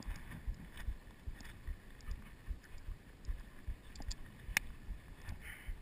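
Footsteps of a person walking on a dry pine-needle forest floor, about two steps a second, with light wind noise on the microphone. One sharp click about four and a half seconds in.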